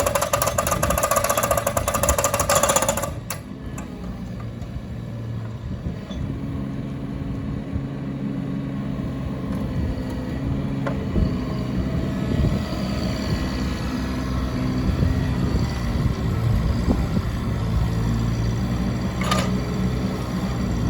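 Bobcat E16 mini excavator's diesel engine running steadily. Over it, a loud rapid hammering rattle cuts off suddenly about three seconds in.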